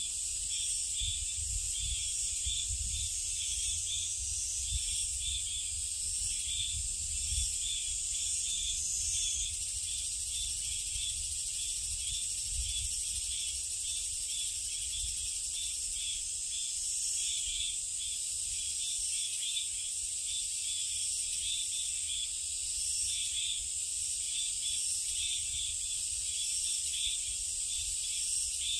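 A dense, steady chorus of summer insects: a high buzzing hiss with a quicker pulsing chirp running through it, over a low rumble.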